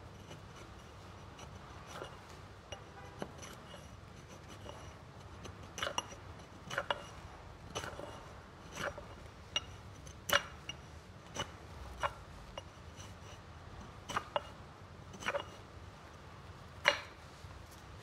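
Forged hatchet blade biting and shaving into a piece of bog oak on a chopping block: sharp, irregular wooden knocks, sparse at first, then about one a second, some in quick pairs, with the loudest near the end.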